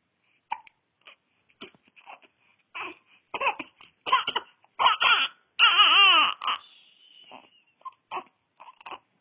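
Baby fussing in short pitched bursts that build into a louder, longer cry about four to six seconds in, then fall back to short whimpers.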